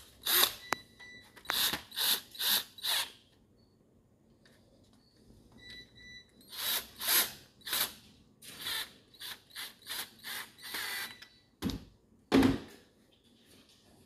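Cordless drill-driver running in a series of short bursts, driving screws into the plastic housing of a dishwasher's main control board, with one louder knock near the end.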